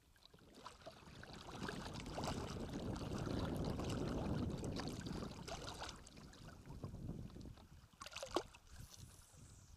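Wind rumbling on the microphone with water noise around a small inflatable boat, swelling over a few seconds and fading, then a sharp click near the end.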